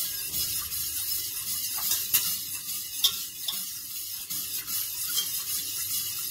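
Wire whisk stirring thin béchamel sauce in a stainless steel pot, scraping and ticking quickly against the metal, with a couple of sharper clicks about two and three seconds in.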